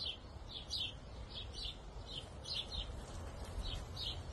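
Small birds chirping, two or three short high chirps a second, over a low steady rumble.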